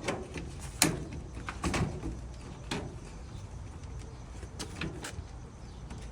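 Scattered sharp clicks and light knocks, about half a dozen, as clothes dryer panels and parts are lined up and fitted back together by hand.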